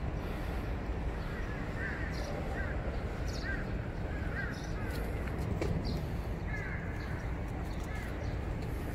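A bird calling repeatedly in short, arching chirps over a steady outdoor background rumble.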